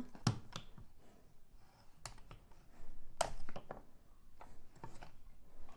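Plastic clicks and light knocks from a toy robot horse's legs being bent and set by hand, scattered irregularly.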